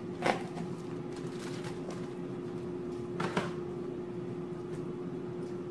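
Raw ground turkey being dropped from its package into a frying pan: two soft thuds about three seconds apart, over a steady background hum.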